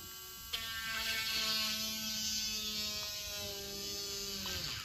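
Cordless nail drill motor whining as a needle bit drills through a plastic nail tip. It starts with a click about half a second in, its pitch sags slightly, and it stops near the end.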